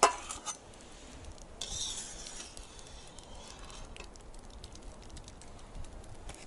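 Metal kitchen utensil clinking against a steaming kazan and a metal tray as boiled onion and pike heads are lifted out of fish soup: one sharp clink at the start, a few lighter clinks, and a brief hiss about two seconds in.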